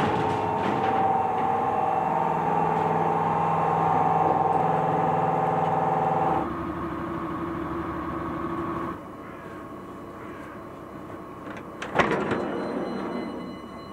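Steady machinery hum made of several fixed tones. It changes pitch and drops in level abruptly about six seconds in and again about nine seconds in, and one sharp knock comes near the end.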